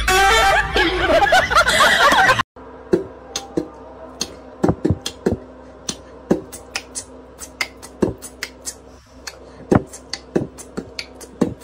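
A person laughing for about two and a half seconds, then, after a sudden cut, a run of sharp, irregular clicks and taps, roughly one or two a second, over a faint steady hum.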